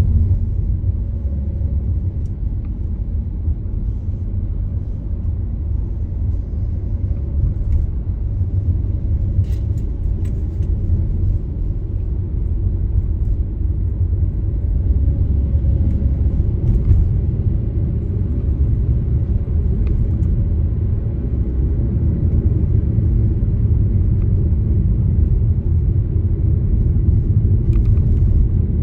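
Steady low rumble of a car driving, the road and engine noise of a moving car, with a few faint clicks about ten seconds in and again near the end.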